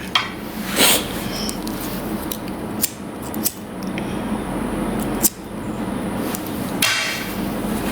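Scattered sharp clicks and a few short rustling bursts of small things being handled, over a steady low hum.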